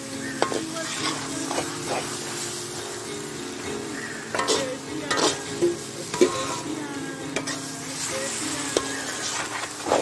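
Mutton and masala sizzling and frying in a large black iron kadai while a perforated metal ladle stirs through it, with irregular scrapes and knocks of the ladle against the pan.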